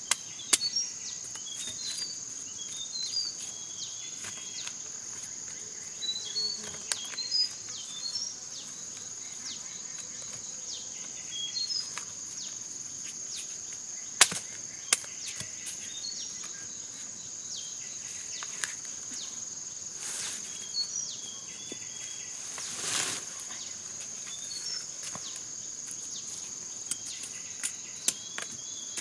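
A machete chopping into giant taro corms: a few sharp strikes, spread out with long gaps, over a steady high drone of insects and scattered short chirps.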